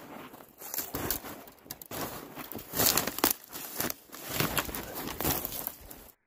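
Footsteps crunching through snow while dry brush twigs scrape and snap against clothing, in an uneven run of crunches and rustles that stops abruptly just before the end.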